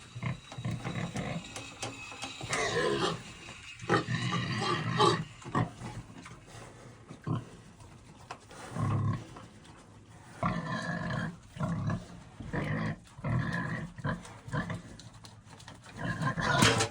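Pigs squealing and grunting as they fight over food, in a run of irregular calls with short gaps between them, the loudest squeals about four seconds in and again near the end.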